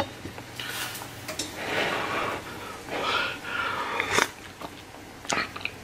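Soup slurped from a ladle: two noisy drawn-in sips about a second apart, the second with a faint rising-and-falling whistle, followed by a couple of sharp clicks.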